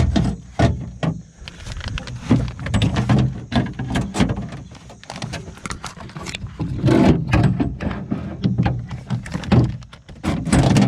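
A car window regulator's metal rails and cables clunking and rattling against the inside of a door shell as the regulator is fed in through an access hole: irregular knocks and scrapes.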